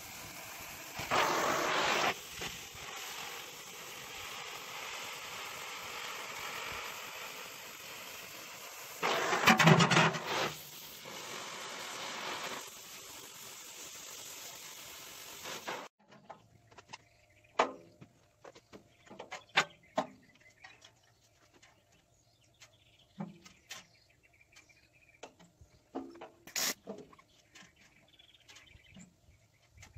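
Oxy-fuel cutting torch hissing steadily as it cuts through quarter-inch steel plate, with two short, much louder rushes. About halfway through, the hiss stops abruptly and only scattered light clicks and knocks of metal handling remain.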